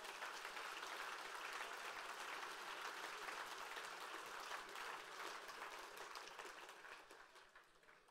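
Audience applauding, holding steady and then dying away over the last couple of seconds.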